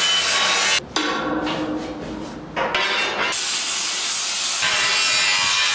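Angle grinder grinding the edge of a steel plate, trimming it to fit. The noise drops out briefly about a second in and grows louder from about three seconds on.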